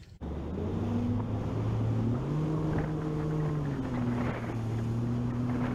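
Bass boat outboard motor running as the boat moves across the water. The engine pitch rises about two seconds in and drops back down about a second and a half later.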